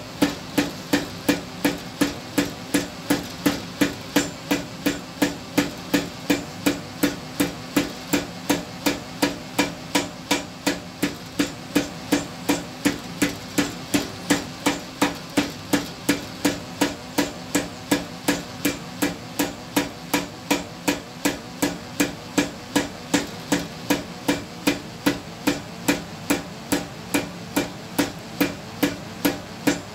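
Blacksmith's hammer striking hot iron on an anvil in a steady rhythm of about two blows a second, each with a short metallic ring, while forging a tenon. A steady low hum runs underneath.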